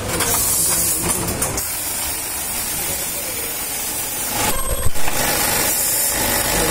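Machinery running steadily with a constant high hiss, and a short, sharp burst about five seconds in.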